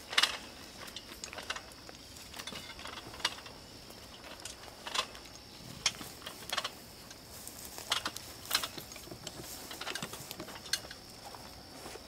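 Irregular knocks and clanks of a person climbing a ladder strapped to a pine trunk, with the rungs taking his weight and his gear and a wooden carrying box knocking about, one or two a second, the sharpest just at the start. A faint steady high-pitched hum runs underneath.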